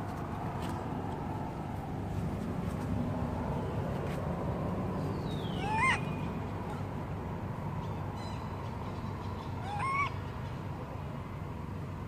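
Baby long-tailed macaque giving two short, rising coo calls, about six and ten seconds in, over a steady outdoor background.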